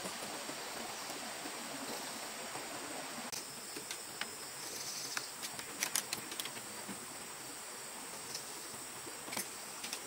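Steady forest ambience with a thin, high insect drone, broken by scattered light knocks and clicks of bamboo poles being handled, a cluster from about four to six seconds in and one more near the end.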